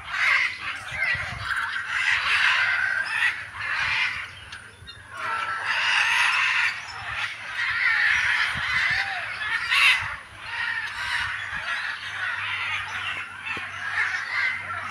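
Many birds calling over one another in a continuous harsh, chattering chorus, easing briefly about four seconds in.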